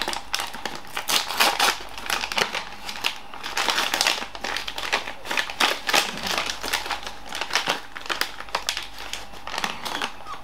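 Crinkling and rustling of a pizza slice's packaging bag, a dense run of irregular crackles, as the microwaved slice is worked out of the bag it keeps sticking to.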